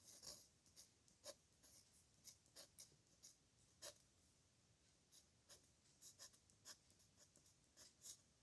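Pen nib scratching across paper in short, faint strokes of irregular rhythm, with a pause of about a second midway, as characters are written by hand.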